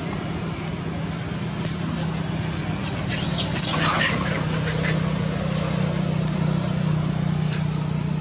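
Long-tailed macaques screeching in a brief burst about three seconds in as they chase each other. Under it, a steady low engine hum runs throughout.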